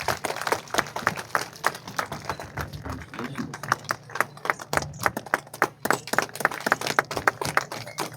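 An audience applauding, with separate hand claps standing out irregularly.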